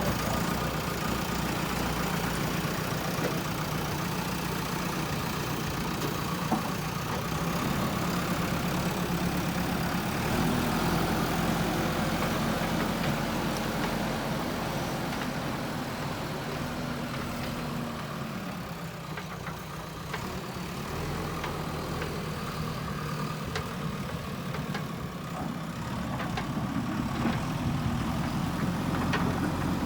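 Diesel engine of a JCB backhoe loader running under varying load, its note stepping up and down as the machine works. It eases off about two-thirds of the way through and picks up again near the end.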